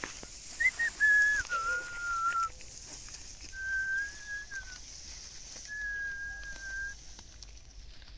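A person whistling three long, clear held notes, the first stepping down in pitch partway through.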